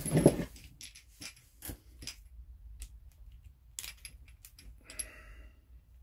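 Brass quick-connect gas fittings and hose clips being handled: scattered small metallic clicks and clinks, with a louder knock near the start.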